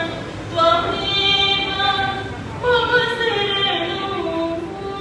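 A woman singing solo in long held notes that step from pitch to pitch, with short breaths about half a second in and again near the middle.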